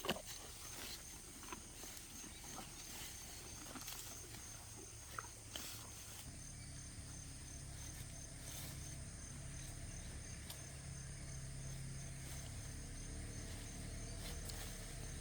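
Cows chewing popcorn stalks, with scattered faint crunches over a steady high buzz of insects. A low hum comes in about six seconds in.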